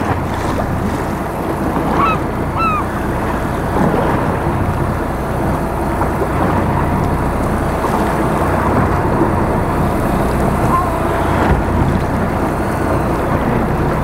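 Boat engine running steadily under wind and sea noise on deck. About two seconds in come two short rising calls, with a fainter one near the end.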